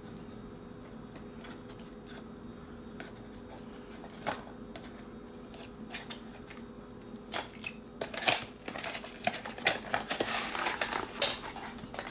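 A cardboard box being opened and its contents handled: scattered light clicks and taps, growing busier about seven seconds in, with a stretch of rustling packaging near the end.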